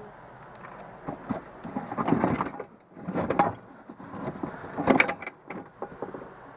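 Irregular clattering, knocking and scraping of stored items, probably bicycle parts, being handled and shifted. The noise comes in three louder clusters, about two, three and a half and five seconds in.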